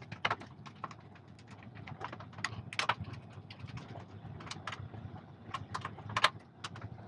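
Irregular light clicks and taps of a 3D-printed plastic mount being handled and worked on its screws, over a faint low hum.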